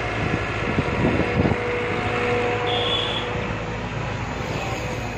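Sumitomo hydraulic crawler excavator working: its diesel engine runs steadily with a hydraulic hum, and several knocks and clanks come from the bucket and boom about a second in.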